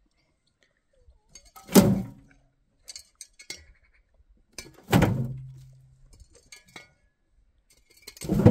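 Shovelfuls of dirt dumped into a steel wheelbarrow: three heavy thuds about three seconds apart, the metal tray ringing low for a moment after the second and third. Light scraping and clinks of the shovel come between the loads.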